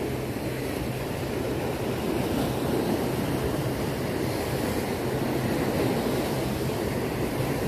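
Sea surf washing steadily against rocky shoreline, with wind on the microphone.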